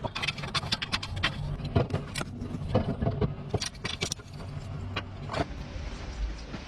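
Irregular sharp clicks and knocks of hand tools and parts being worked on a small car, over a low steady hum; the clicks are thickest in the first few seconds and thin out after.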